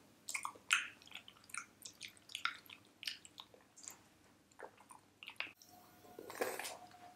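Close-up wet chewing and lip smacks of soft fruit jelly, a quick run of short squishy clicks. Near the end comes a longer slurp as jelly is sucked straight from a small plastic cup.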